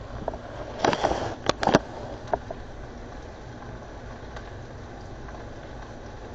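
Kitchen handling sounds: a quick cluster of sharp clicks and knocks about a second in, then a single tap, over a steady low hum.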